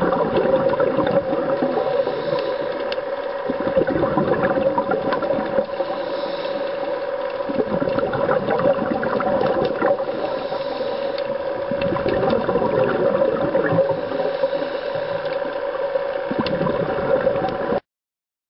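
Underwater ambience picked up by a diving camera: a steady hum with a wash of water noise that swells every few seconds. It cuts off suddenly near the end.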